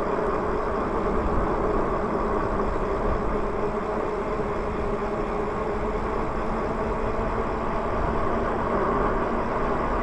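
Electric bike riding along at a steady pace: continuous wind and tyre noise on pavement, with a steady hum from the bike's drive running underneath.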